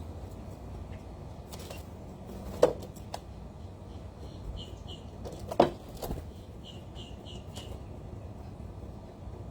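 Two sharp knocks a few seconds apart, with short high chirps from small birds in between and after, over a steady low hum.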